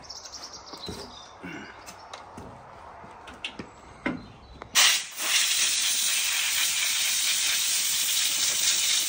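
Compressed-air blow gun blowing air over the exposed wiring and terminal strips of a tank turret control box: a loud, steady hiss that starts about halfway through. Light knocks and handling clatter come before it.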